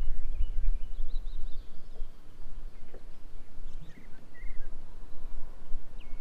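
Songbirds chirping on and off in short high phrases, over a low steady rumble.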